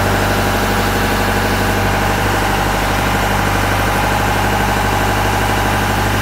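Engine of a person lift (aerial work platform) idling steadily.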